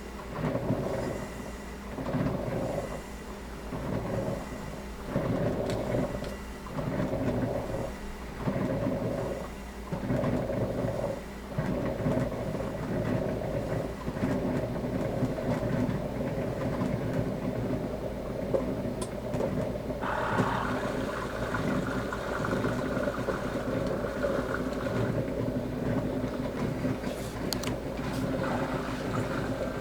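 Coffee maker's single-serve pod side heating and pumping water while brewing: a rhythmic pulsing bubbling, about one pulse a second and a half, settles into a steady run about twelve seconds in. A higher hiss joins about twenty seconds in.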